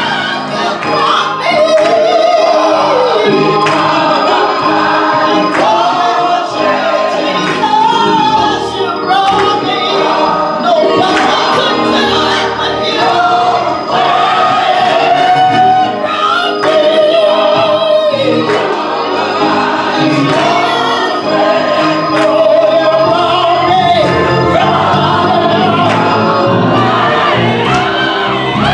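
Gospel song sung with piano accompaniment, the melody carried in long, wavering held notes.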